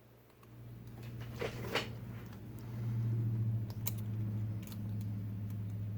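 A steady low hum comes in about half a second in and swells around the middle. Over it are a few light clicks and rustles of small parts being handled as the screen's flex cables are worked into their connectors.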